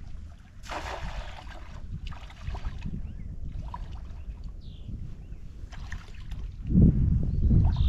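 Wind buffeting the microphone outdoors, with a few short rushes of noise and then heavy low gusts near the end.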